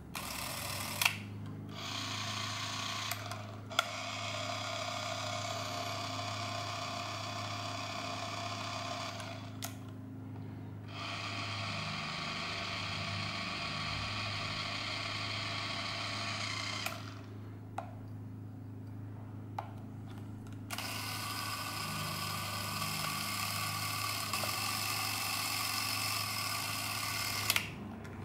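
Canon Auto Zoom 814 Super 8 movie camera running, a steady mechanical whir in several runs of a few seconds each, switched on and off with a click. The last run is higher in tone, as the camera is tried at different speeds.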